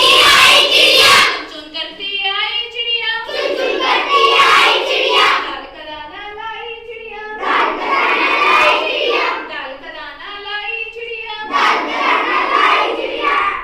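A group of children chanting a Hindi rhyme about a sparrow in unison, in four loud passages about four seconds apart, with a single voice leading the lines between them.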